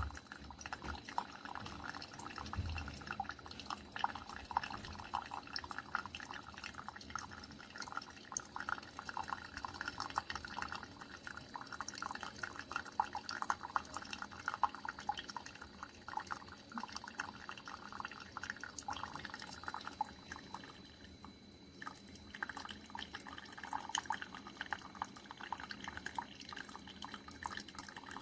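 Single-serve coffee maker brewing, hot coffee dripping and spitting into the mug as a steady fine patter, with a brief lull about three-quarters of the way through.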